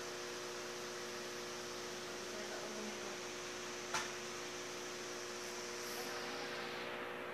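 Aquarium air pump and filter humming steadily, with a hiss of air bubbles rising through the water. There is one short click about four seconds in.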